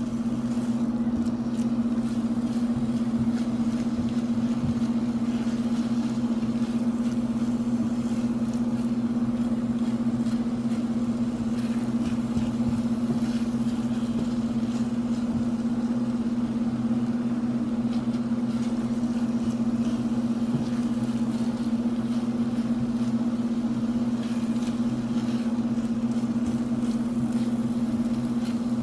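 A steady machine hum with a strong low tone and an even rush of air behind it, unchanging throughout. Over it come faint scrapes of a silicone spatula stirring scrambled eggs in a skillet.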